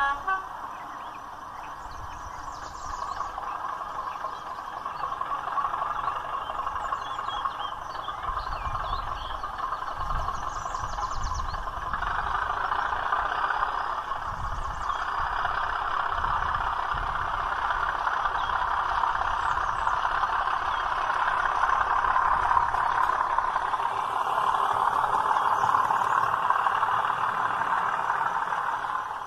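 The DCC sound decoder of a OO gauge model class 37 diesel locomotive plays the steady run of an English Electric diesel engine through a small onboard speaker. It gets louder about twelve seconds in.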